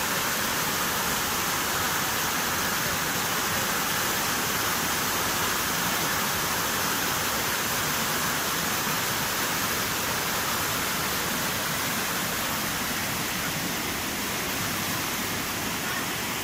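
Steady rush of flowing river water, an even unbroken sound that holds at one level throughout.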